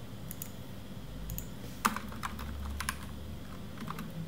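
Typing on a computer keyboard: a handful of scattered keystrokes, the sharpest about two seconds in.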